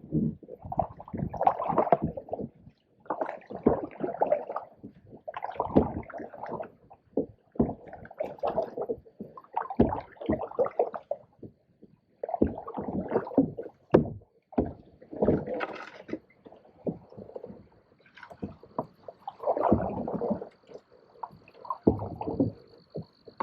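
Canoe being paddled and pushed through shallow, weedy water: irregular paddle strokes with splashing and gurgling, knocks and scrapes of paddles and vegetation against the hull. A faint steady high insect trill comes in near the end.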